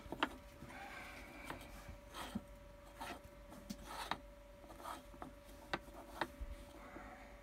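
A small canvas being slid, turned and set down on a countertop by hand: repeated scraping rubs with several sharp taps, the loudest near the start and about six seconds in.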